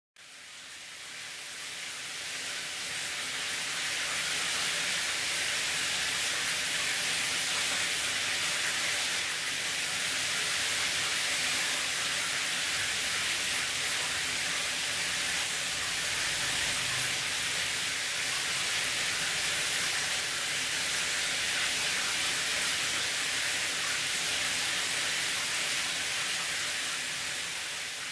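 Chrome replacement shower head spraying water in a steady hiss, fading in at the start and out at the end.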